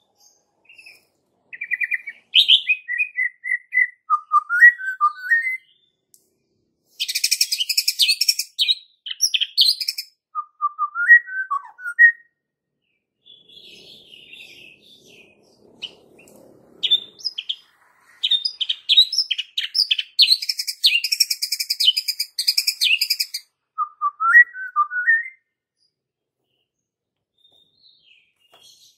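White-rumped shama (murai batu) singing. Short whistled phrases that slide up and down alternate with two long, harsh rasping rattles of about three to five seconds each.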